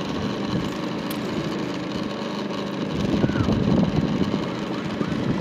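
Small motorcycle engine running steadily as the bike rides along, with wind rumble on the microphone that gets louder about three seconds in.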